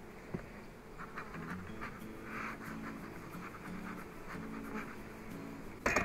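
Honeybees buzzing over an open, crowded hive box: a steady hum that wavers in pitch, with faint scratches and a sharp knock near the end.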